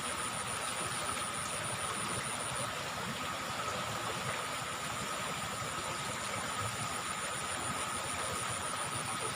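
Steady riverside ambience: a continuous rushing hiss with a constant high, rapidly pulsing trill and a lower steady whine, typical of insects calling over running water.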